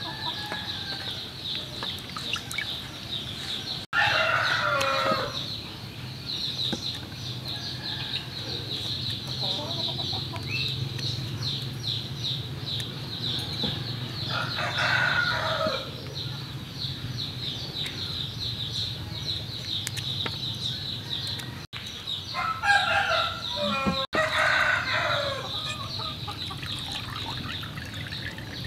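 Roosters crowing, three times, each crow lasting a second or two, over a steady high-pitched buzz.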